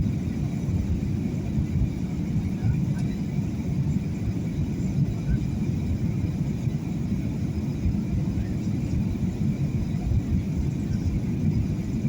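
Steady low rumble of an airliner's engines and rushing air, heard inside the passenger cabin during the approach to landing.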